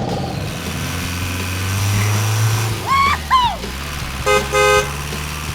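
Vehicle engine rumble with two short car-horn honks near the end. Just before the honks come two quick swooping squeaky tones.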